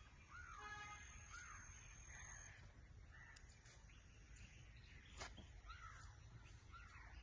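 Birds calling faintly over farmland: a short call right at the start, then a few rising-and-falling chirps scattered through, over a low steady rumble. A single sharp click comes about five seconds in.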